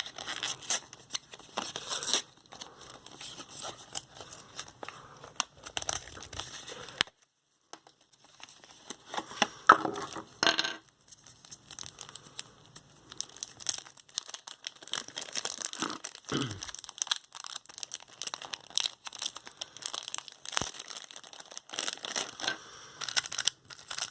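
Puzzle-cube packaging being opened by hand: plastic and paper tearing and crinkling, with scattered clicks and rustles.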